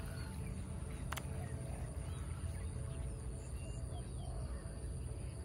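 Outdoor pond-bank ambience: a steady low rumble with scattered short bird chirps and a steady high insect hiss, and one sharp click about a second in.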